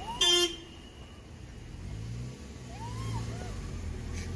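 A short, loud vehicle horn honk just after the start, followed by the low, steady running of a vehicle engine passing on the road.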